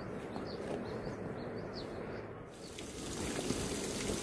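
Small birds chirping in short, quick high notes over a steady low outdoor rush. About two and a half seconds in, the chirps give way to a broad, steady hiss.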